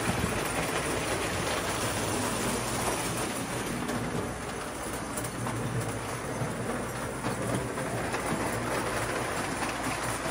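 Old electric toy train, a steam-style locomotive pulling a tender and freight cars, running on its layout track: a steady low motor hum with the wheels rattling and clicking along the rails.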